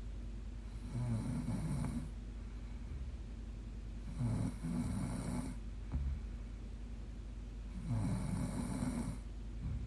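A woman snoring in her sleep: three snores about three and a half seconds apart, each lasting about a second.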